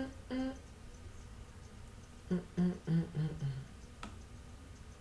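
A woman humming a short wordless tune: a note or two at the start, then about five notes stepping down in pitch about halfway through. A single sharp click near the end.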